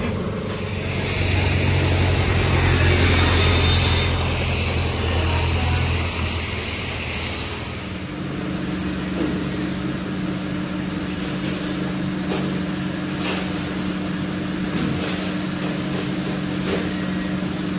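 Steady machine hum with a hiss in a metal fabrication shop. About eight seconds in it changes to a steadier, lower electric hum with a few light clicks, like a fan running in a room.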